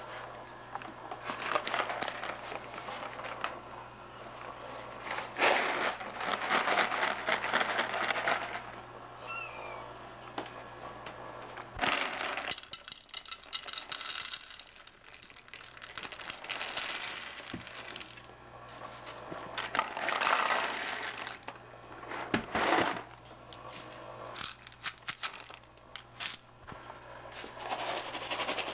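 A kitten crunching dry kibble from a bowl: irregular bursts of crisp crackling, each lasting a second or more.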